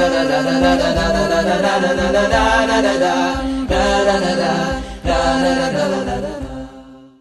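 Chanted vocal music sung without instruments, with a soft low beat about once a second, fading out near the end.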